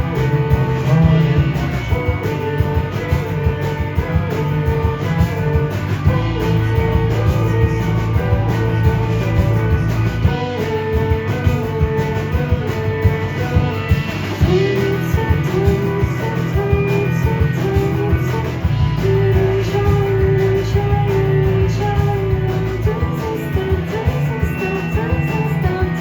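Rock band playing live, guitar-led over a heavy low end, at a steady loud level.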